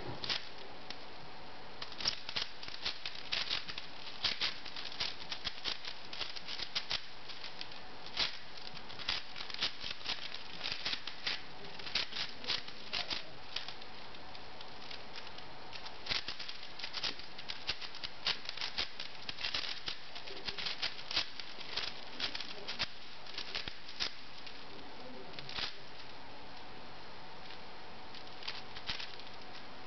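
V-Cube 6 puzzle cube turned rapidly by hand: its plastic layers click and clack in quick irregular clusters, with short pauses, over a steady hiss.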